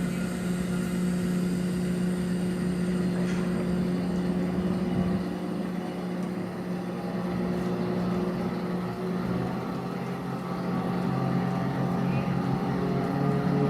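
Steady low drone of marine engines holding an even pitch, with a second lower tone joining briefly near the end.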